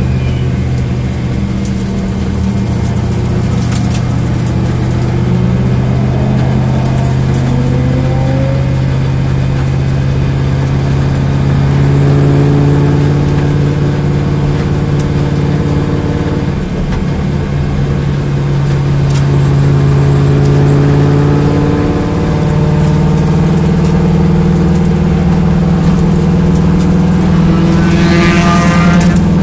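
Corvette engine running, its speed stepping up and down a few times and rising in a short rev near the end. This is an engine with a misfire.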